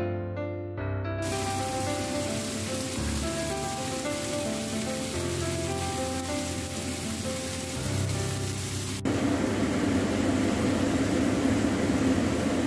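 Stuffed chicken breasts sizzling as they sear in a frying pan, under soft piano music. About nine seconds in the sound cuts to a louder, steady rushing noise.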